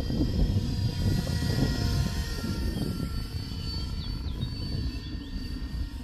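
Heavy wind buffeting the microphone with a low rumble, over the thin steady whine of a 330S RC helicopter in flight.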